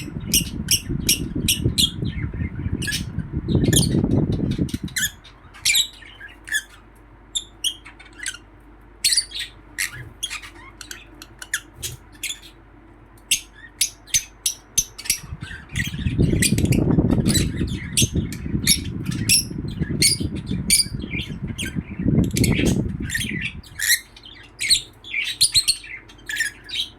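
Lovebirds chirping and squawking in rapid, sharp, high calls, several a second. A loud low rumbling noise comes in under the calls for the first few seconds and again for several seconds after the middle.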